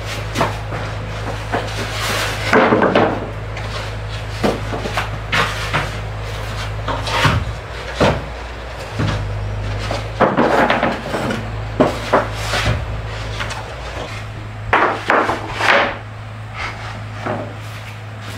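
Wooden planks knocking and clattering as they are laid down and stacked on one another: a series of separate wooden knocks, some in quick pairs or threes, over a steady low hum.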